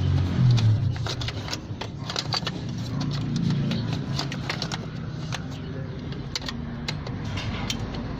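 Scattered light clicks and taps throughout, over a low rumble that is loudest in the first second.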